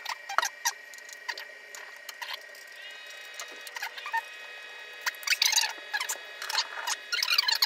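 Irregular clicks, taps and knocks of hands handling a 3D printer's parts and packaging, coming more thickly about five seconds in and again near the end, over a faint steady high tone.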